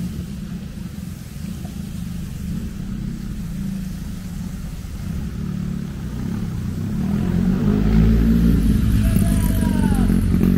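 A passing motor vehicle's engine: a low rumble that grows clearly louder from about seven seconds in, with its pitch dropping near the end as it goes by.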